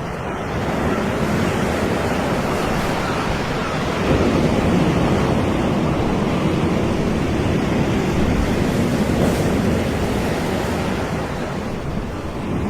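Ocean surf on a beach: a steady rush of breaking waves, swelling louder about four seconds in.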